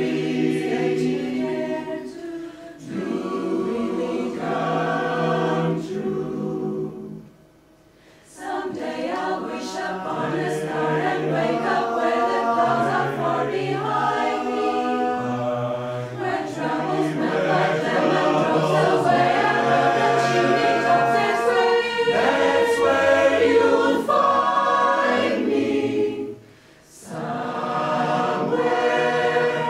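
Mixed choir of sopranos, altos, tenors and basses singing a cappella in harmony, in phrases that break off briefly twice: about seven seconds in and again near the end.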